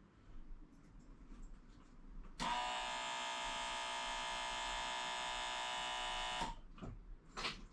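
A small electric motor buzzing steadily for about four seconds, switched on and off abruptly.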